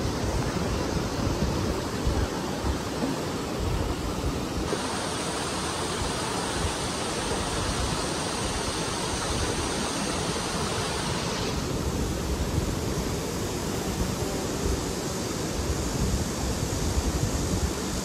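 Steady rushing of water from a weir waterfall and a shallow river, its hiss sharper for several seconds in the middle, with some wind rumble on the microphone.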